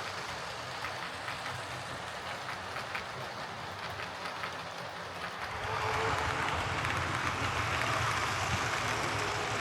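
OO gauge Lima Class 37 model diesel locomotive, converted to a CD motor, running along model railway track: motor hum and rolling wheels with light clicks, getting louder about six seconds in.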